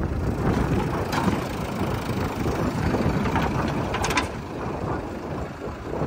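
JCB 3DX backhoe loader's diesel engine running steadily as the machine drives past at close range.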